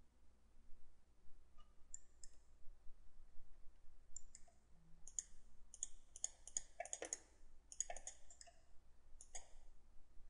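Faint computer mouse button clicks, irregular, starting about two seconds in and coming in quick clusters of several clicks.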